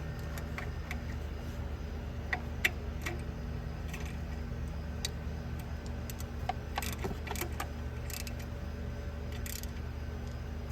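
Light metallic clicks and clinks of hand tools against metal engine parts, coming in short scattered clusters, over a steady low hum.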